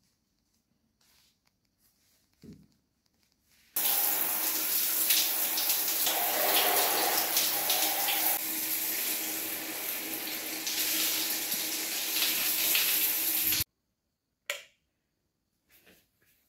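Water running from a tap into a sink for about ten seconds, starting a few seconds in and cutting off suddenly. A single light knock comes shortly before it.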